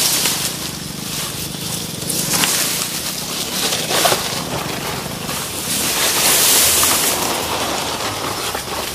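Grass and leaves rustling and swishing as someone pushes through dense undergrowth close to the microphone, in uneven surges with small crackles, loudest about six to seven seconds in.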